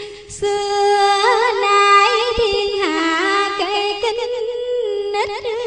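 Music: a slow Vietnamese ngâm-style melody of long, wavering held notes with quick ornamental turns, with a short break about half a second in.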